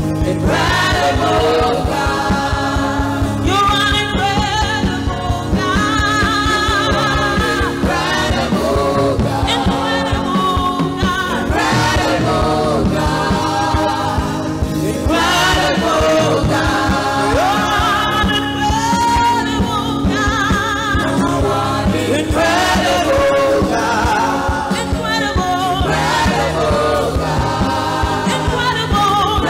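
Live gospel praise music: several singers with microphones over electric bass guitar and a Yamaha Motif XF8 keyboard, with a steady beat.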